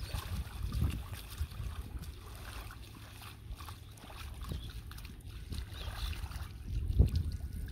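Hands splashing and squelching in the shallow water and mud of a flooded rice paddy as seedlings are pushed in by hand, over a low rumble. A louder thump comes about seven seconds in.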